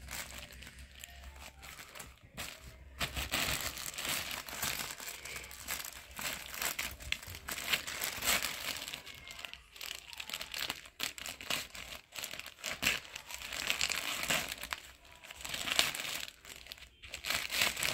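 A courier parcel's packaging being torn open and handled: crinkling and rustling with short tearing sounds, coming and going irregularly.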